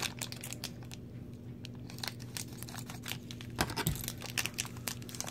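Thin plastic toy wrapper crinkling and tearing as a small figure is unwrapped by hand: an irregular run of small crackles, with a few louder ones about three and a half seconds in.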